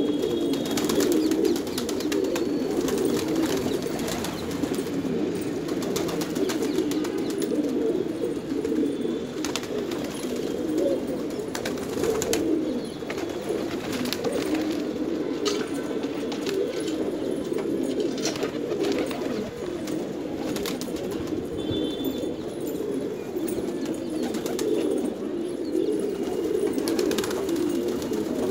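A flock of domestic pigeons cooing together in a steady, overlapping chorus, with scattered wing flaps and a few brief high chirps.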